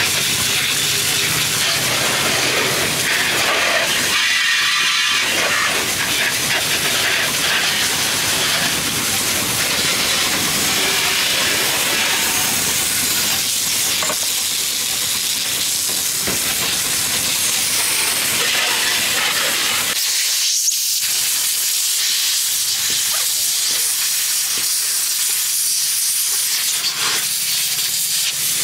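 High-pressure washer jet spraying water onto a scooter and the wet concrete around it: a steady loud hiss, briefly breaking off about four seconds in and again about twenty seconds in.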